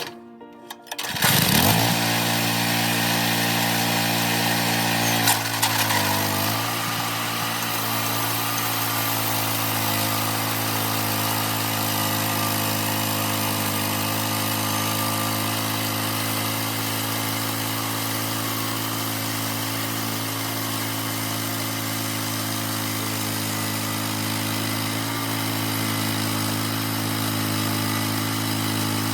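Small gasoline engine of a homemade sawmill starting about a second in, then running at a steady speed, with a brief change in pitch around five to six seconds in.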